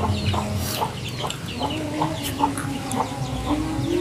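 Chickens clucking, many short calls in quick succession.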